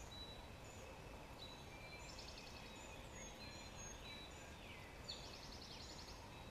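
Faint chorus of woodland songbirds: several birds chirping, whistling and giving rapid trills, over a low rumble of wind or ambient noise.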